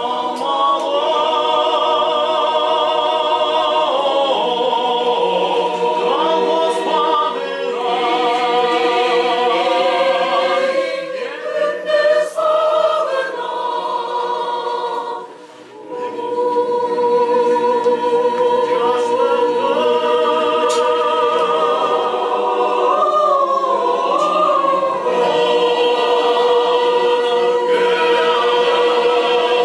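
Mixed choir of men's and women's voices singing in parts, with long held notes. The singing stops briefly about halfway through, then starts again.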